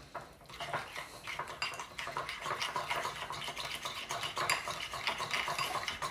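Metal spoon clinking and scraping rapidly against a ceramic bowl, stirring a thin, watery batter of cornflour and flour.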